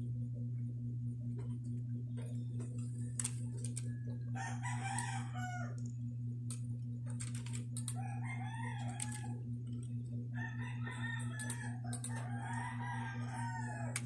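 A rooster crowing four times in the background over a steady low hum, with scattered light clicks.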